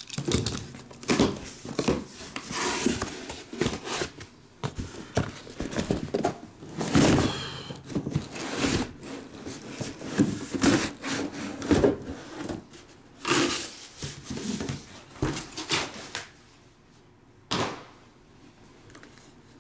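A cardboard shipping case being handled and lifted off a stack of shrink-wrapped trading-card boxes: irregular rubbing, scraping and thunks of cardboard that die down after about sixteen seconds, with one sharp click near the end.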